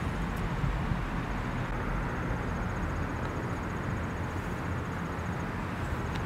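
Steady outdoor background noise: an even hiss and low rumble with no distinct events and no speech.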